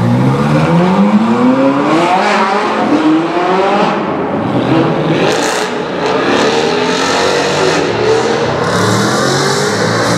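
V8 supercars accelerating hard one after another through a road tunnel, the engine pitch climbing up through the revs again and again, echoing off the tunnel walls. First a Ferrari 458 Italia pulls away, then a straight-piped Mercedes C63 AMG 507 Edition.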